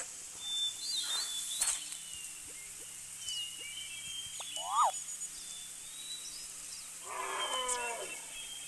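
Animal calls over high bird chirps: one short sharp call about five seconds in, then a longer call of about a second near the end that falls in pitch.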